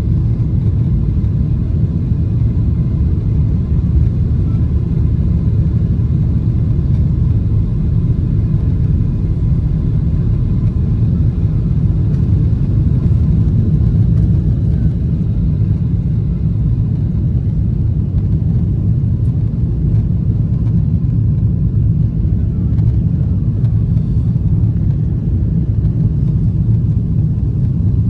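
Cabin noise of a Boeing 777-300ER's GE90 engines at takeoff thrust, through the takeoff roll and into the initial climb. It is a steady, loud, deep rumble heard from inside the cabin.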